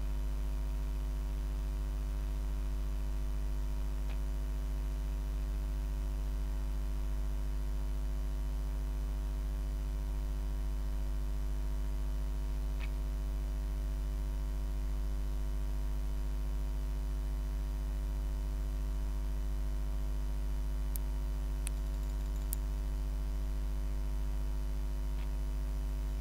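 Steady electrical mains hum with its overtones, a constant background in the recording. A few faint mouse clicks stand out over it, three of them close together near the end.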